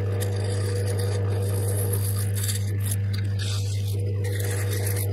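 Small belt-driven wood lathe running with a steady low hum while a hand-held turning tool scrapes across the face of a spinning wooden disc.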